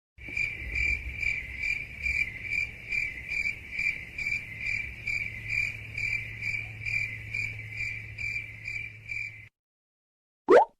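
Crickets chirping in a steady rhythm, about three chirps a second, over a faint low hum: the stock 'crickets' sound effect for an awkward silence. It stops abruptly, and a short rising swish follows near the end.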